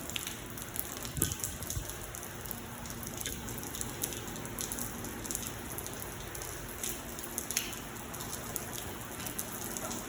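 Heavy rain pouring down steadily, with close drops tapping sharply now and then.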